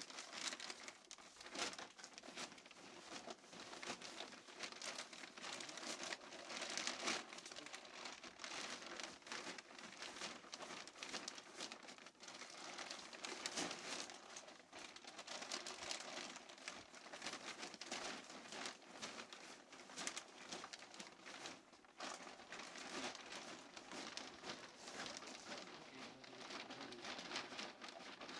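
Black plastic silage tube bag crinkling and rustling in an irregular run of crackles as the chopped Sugar Graze forage inside is pressed down and the plastic is gathered by hand.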